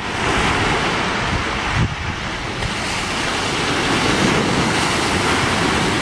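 Small waves breaking and washing up a sandy beach: a steady rush of surf, with wind rumbling on the microphone.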